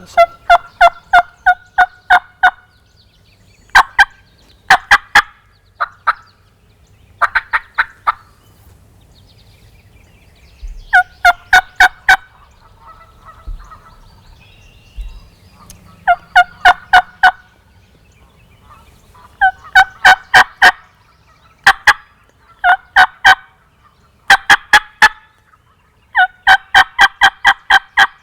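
Wild turkey gobblers gobbling again and again, about a dozen loud bursts of rapid, rattling notes close by.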